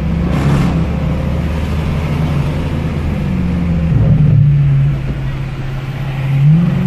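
A car engine running under way, heard from inside the cabin: a steady hum whose pitch slides down about three seconds in, dips briefly a second later and rises again near the end.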